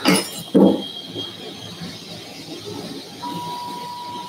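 Two sharp knocks near the start, then about three seconds in an electrosurgical unit's steady single-pitch activation tone, which sounds while the electrocautery pencil is energised.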